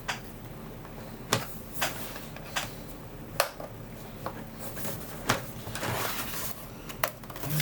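Plastic case of a TRS-80 Model 100 being pried and worked apart by hand: scattered sharp clicks and snaps, with a brief scraping rustle about six seconds in.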